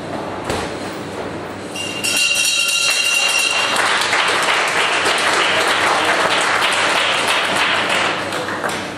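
A bell rings once, with a clear ringing tone, about two seconds in. The crowd's applause starts at the bell and runs loud for about six seconds, then dies down near the end.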